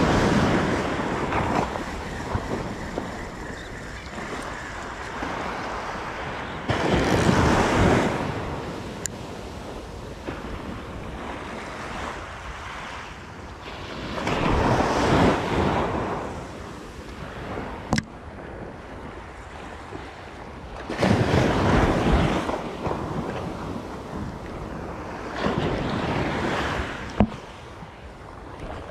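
Small surf waves breaking and washing up the beach, swelling into a loud rush about every six or seven seconds, with wind on the microphone. A few sharp clicks between the waves.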